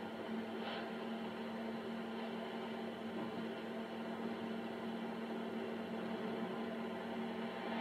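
Steady electrical hum with a low hiss beneath it, and one faint click just under a second in.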